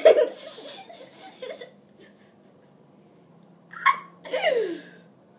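A boy laughing: a loud, breathy burst of laughter at the start that trails off over a second or so, then another short laugh about four seconds in that falls in pitch.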